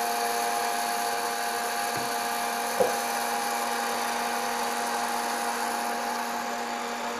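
Hot-air popcorn maker running: its blower fan whirs steadily with a high whine. One brief sharper sound about three seconds in.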